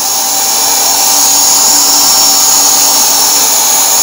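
Yattich YT-191 500-watt electric paint sprayer running while spraying: a steady, very noisy high-pitched whine from its motor over a rush of air. It is loud enough to call for ear protection.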